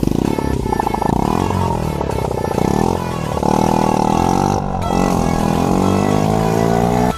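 Small 50cc kart engine running on its newly fitted CDI ignition, revved up and down several times, its pitch rising and falling.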